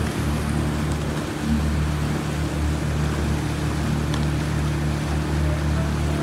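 Outboard motor of a coaching launch running steadily at cruising speed, pacing a rowing eight, over a constant hiss of water and wind.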